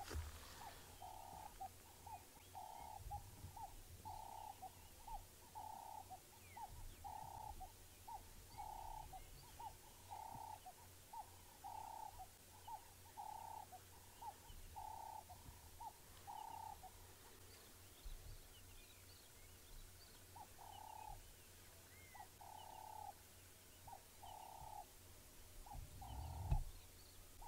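A bird calling in a faint repeated low hoot, about one note a second with short softer notes between, breaking off about 17 seconds in and starting again a few seconds later.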